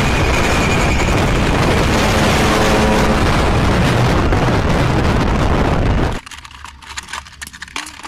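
Loud, steady roar of wind and road noise from a moving vehicle driving alongside a container truck on a highway, cutting off abruptly about six seconds in. After that come faint clicks and rustles of toy boxes being handled in grass.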